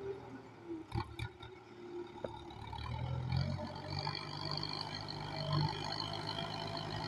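Kubota M9540 tractor's diesel engine running, growing louder about three seconds in as it works, with a few sharp knocks about a second in.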